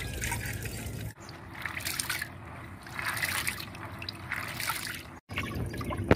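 Tap water running and splashing into a pot as raw meat is rinsed under it, then, after an abrupt change about a second in, a hand swishing and rubbing split pulses in a plastic basin of water in irregular splashes.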